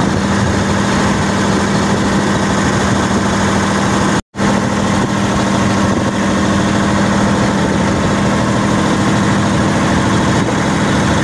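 Outrigger fishing boat's inboard engine running steadily underway, a constant drone with a strong low hum. The sound cuts out completely for a moment about four seconds in.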